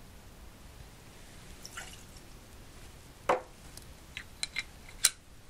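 Blended scotch being poured into a cocktail shaker of ice: a quiet pour, then several sharp clinks, one about halfway through, a quick run of them and one more near the end.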